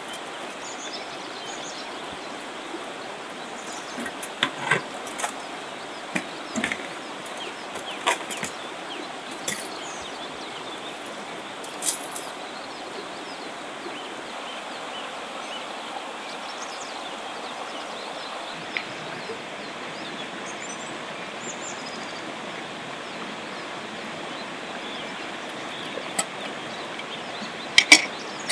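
Shallow rocky river running steadily, with scattered light clicks and knocks of things being handled, the loudest cluster near the end.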